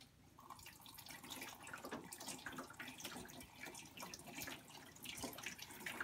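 Water poured from a cup into the top of a plastic Step2 Waterfall Discovery Wall, trickling and splashing down through its funnels and chutes into the basin, with many small drips and splashes. It starts a moment in.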